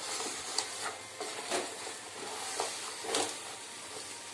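Banana leaves rustling and crinkling as they are pressed against the inside of a pressure cooker to line it, with several sharper crackles.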